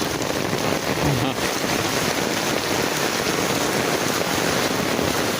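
Torrential rain pouring steadily in a thunderstorm, a dense hiss of heavy rain falling on an umbrella and flooded pavement.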